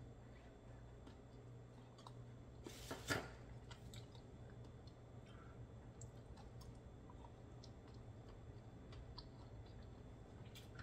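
Faint chewing of a raw oyster, with light clicks scattered throughout and one brief louder noise about three seconds in.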